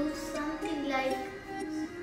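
Background music: a melody of held notes over a sustained accompaniment.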